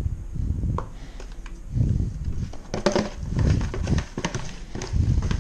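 Hands turning and rubbing raw fish fillets in a plastic tray, with irregular soft thuds and knocks of the plastic and a few sharp clicks.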